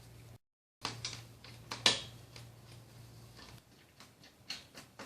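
Scattered sharp clicks and knocks of pressure-washer parts being handled and fitted by hand during assembly, the loudest about two seconds in, over a steady low hum that stops partway through.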